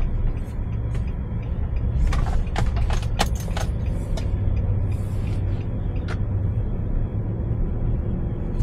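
Steady low engine and road rumble heard inside a moving vehicle's cabin, with a quick cluster of sharp clicks and knocks about two to three and a half seconds in and one more click near six seconds.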